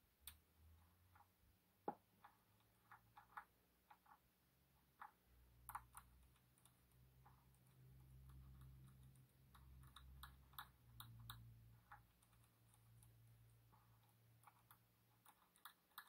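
Faint, irregular small metallic clicks and ticks of a lock pick and tension tool working inside an EVVA MCS magnetic lock cylinder, as the pick nudges the magnetic rotors. The loudest click comes about two seconds in, and a faint low rumble runs under much of the middle.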